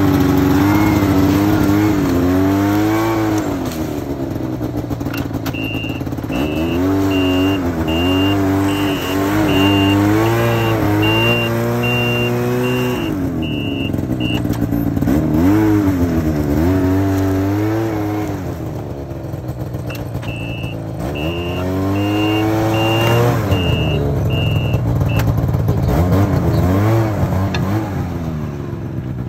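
Yamaha VK540 snowmobile's two-stroke twin engine revving up and down again and again as the sled is worked through snow. A high electronic beeper sounds about twice a second in two stretches.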